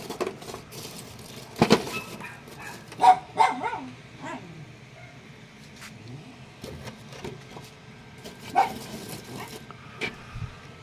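A dog barking a few short times, about three seconds in and again near the end, among scattered knocks and clicks.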